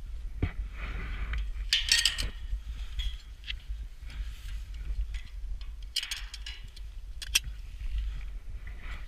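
Wind buffeting the microphone in a steady low rumble, with scattered clinks, scrapes and rustles as the climber's gloves and gear meet the steel tower members. The louder brushy scrapes come about two seconds in and again around six to seven seconds in.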